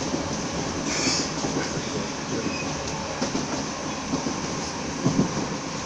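Merseyrail electric commuter train running at speed, heard from inside the carriage: a steady rumble of wheels on the rails. A brief high hiss comes about a second in, and a couple of louder knocks come near the end.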